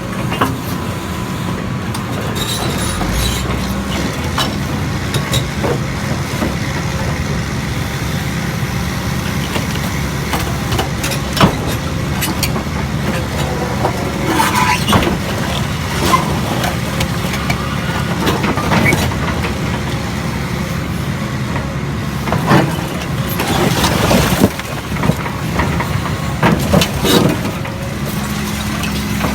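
Steady engine drone of a hydraulic rock splitter's power unit, with sharp cracks and knocks now and then, the loudest about eleven seconds in and several between about 22 and 27 seconds.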